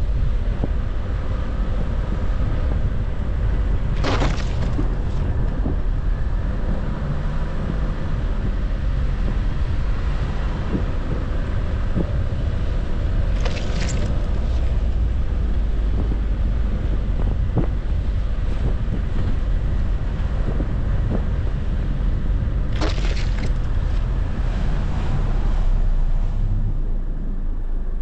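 A car driving slowly on snow-covered streets: a steady low rumble of engine and tyres on packed snow. Three short hissing swishes come about nine seconds apart.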